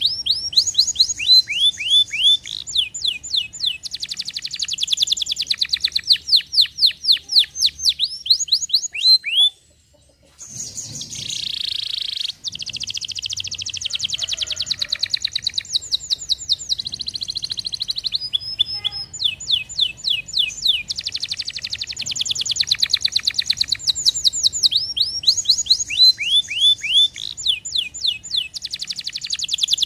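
Domestic canary singing: rapid trills of repeated, falling high notes, one trill running into the next, with a short break about ten seconds in.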